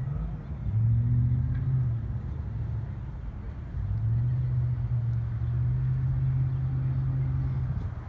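Low rumble of car traffic driving past, an engine drone that swells about a second in and again from about four seconds in.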